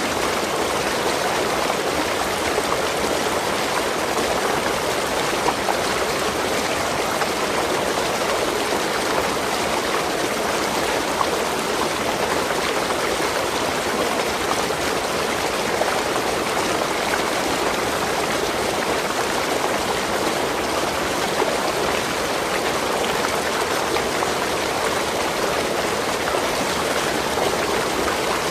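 Waterfall: water rushing and splashing in a steady, unbroken rush.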